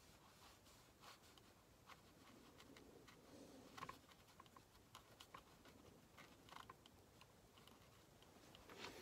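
Near silence, with faint, scattered light ticks and scratches of a watercolour brush working over paper.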